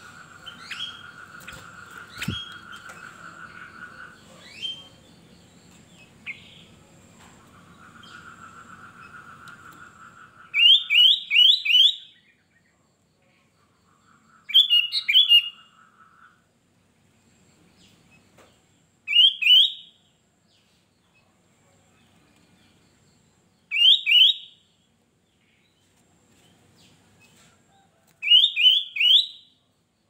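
Sooty-headed bulbul singing: short bursts of two to four quick, rising whistled notes, repeated every four to five seconds through the second half. In the first ten seconds only a steady mid-pitched buzz and a few faint chirps are heard.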